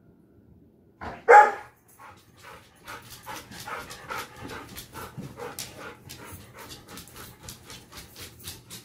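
Bernese mountain dog panting in quick, even breaths, about three to four a second. About a second in comes one loud, short call, the loudest sound.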